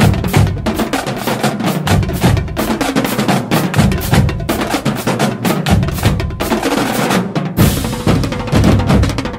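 Background music driven by a drum kit: fast, steady drum strokes with bass drum and snare, and a cymbal crash near the end.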